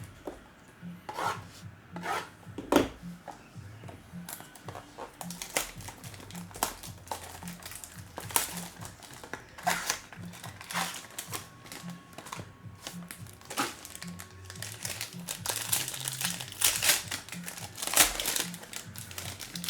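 Plastic wrapping crinkling and tearing as a box of trading cards is opened, with irregular crackles and rustles of handling. Quiet background music with a steady beat plays underneath.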